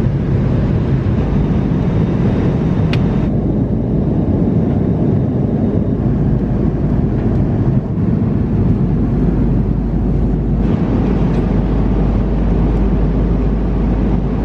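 Steady low drone of an airliner cabin in flight, with one light click about three seconds in.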